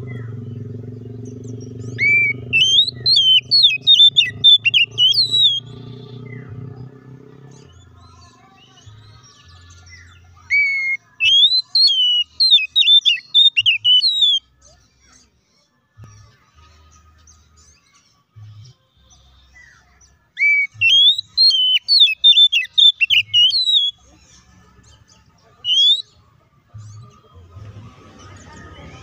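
Oriental magpie-robin (kacer) singing: three bouts of rapid, varied whistled phrases, each three to four seconds long, with a lone rising whistle near the end. A low hum lies underneath for the first several seconds.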